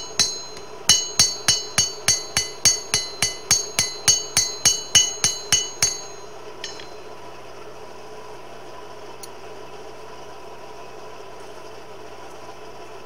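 Hand hammer striking a hot hay rake tine spring-steel blade on an anvil: one blow, then a quick even run of about seventeen blows at roughly three a second, each with a bright metallic ring, stopping after about six seconds. A steady low hum continues underneath.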